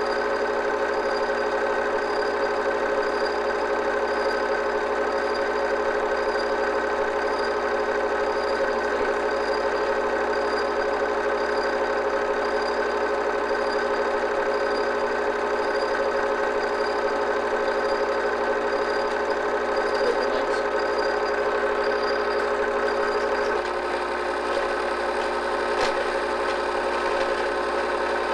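An 8 mm film projector running: a steady mechanical whirring hum from its motor and film mechanism.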